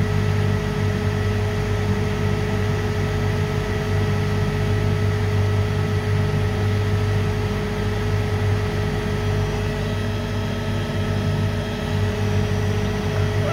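Electric motor running on a variable frequency drive: a steady low hum with a few constant higher whining tones. The drive is putting out only about 150 V, a low voltage that is apparently overloading the motor.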